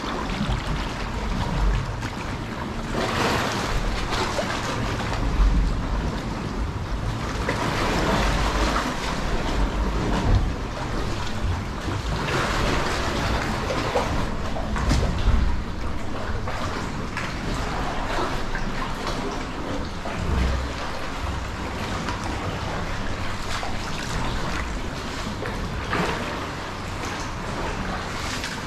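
Sea water sloshing and lapping around a kayak being paddled, swelling every two to three seconds.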